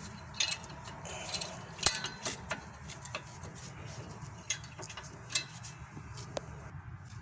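Steel-backed brake pad clicking and clinking against the rear caliper bracket and its new pad clips as it is worked into place: a string of irregular sharp metallic ticks, the loudest just under two seconds in.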